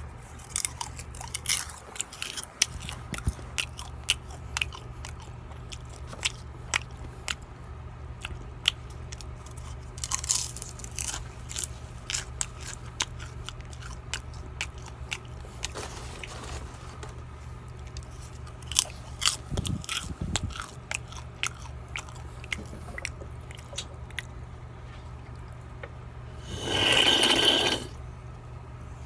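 A person eating popcorn close to the microphone: irregular sharp crunches and chewing throughout. Near the end comes a louder breathy rush lasting about a second and a half.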